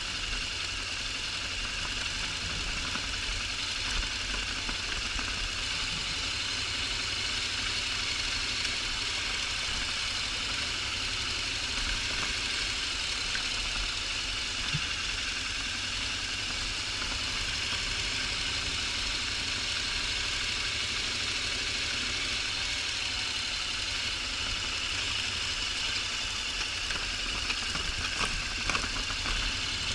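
Honda NC750X DCT's parallel-twin engine running steadily, with a continuous rumble and noise on the action-camera microphone. A few faint clicks come near the end.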